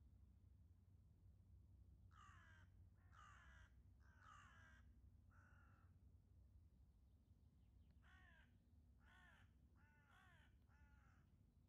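Ravens calling: two bouts of four faint, harsh caws, each caw about half a second long, with a pause of about two seconds between the bouts.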